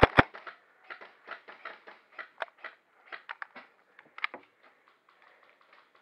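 Two sharp airsoft gun shots at the very start, the end of a quick string of shots, followed by many fainter, irregular clicks and snaps that thin out after about four seconds.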